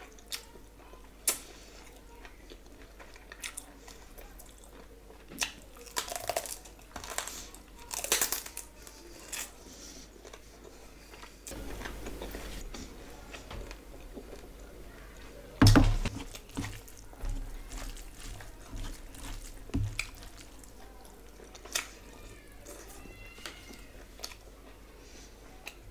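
Close-up eating sounds: chewing, biting and small crunches from someone eating a rice-and-curry meal with their fingers, in scattered short bursts. A sharp thump about sixteen seconds in is the loudest sound.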